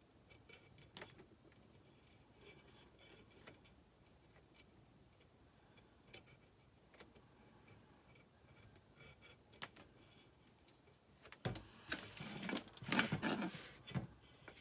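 Craft knife cutting decoupage paper glued onto a metal tray: faint scattered ticks, then, about twelve seconds in, a couple of seconds of louder scratching and handling noise.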